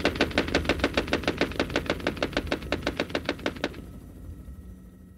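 Combat helicopter's gun firing a sustained automatic burst of armour-piercing rounds, about ten shots a second, getting fainter and cutting off suddenly about three and a half seconds in; a low hum remains after it.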